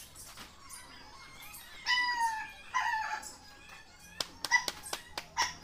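An animal calling: two short calls that fall slightly in pitch, then a quick run of short sharp chirps near the end.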